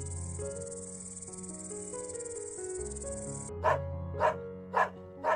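A bush-cricket's high, steady buzzing song cuts off suddenly about three and a half seconds in. A dog then barks four times, about half a second apart, over soft background music.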